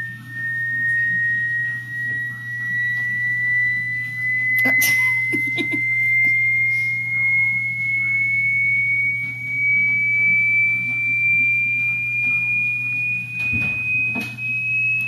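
Hearing-test tone: a single pure tone rising slowly and steadily in pitch. There is a brief noise about five seconds in and another near the end.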